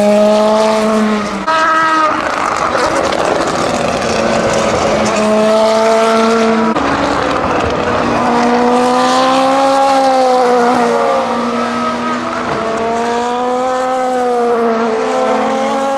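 Oreca 07 LMP2 race cars' naturally aspirated 4.2-litre Gibson V8 engines at racing speed. The engine note rises and falls several times with gear changes and as the cars pass, and it changes suddenly about a second and a half in and again midway.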